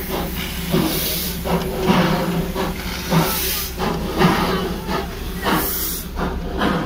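A Darjeeling Himalayan Railway B-class narrow-gauge steam locomotive standing at the platform with its steam hissing, rising and falling in repeated surges about every half second.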